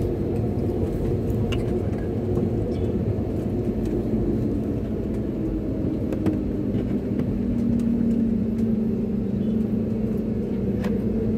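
Cabin noise of an Airbus jet airliner taxiing: the engines' steady low drone and hum, with one hum growing a little louder about seven seconds in, and a few faint clicks.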